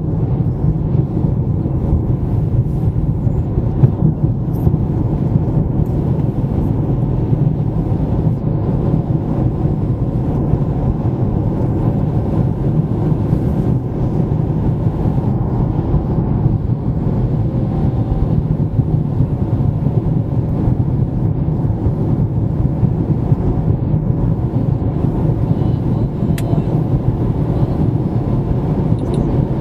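Car travelling on a highway: steady tyre and road noise with a low engine hum, unchanging throughout.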